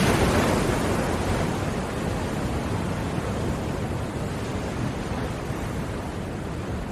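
Ocean surf: a steady rushing wash of sea water that slowly eases off after a wave, before the next one builds.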